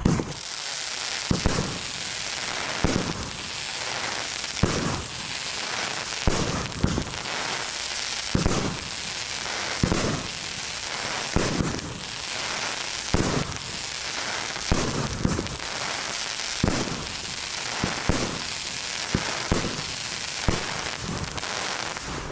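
Argento Expression 13-shot 30 mm firework battery firing: a loud bang about every second and a half, with dense gold crackling from the bursting shells filling the gaps between them.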